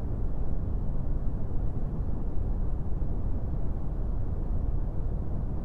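Steady low rumble of wind buffeting an outdoor microphone.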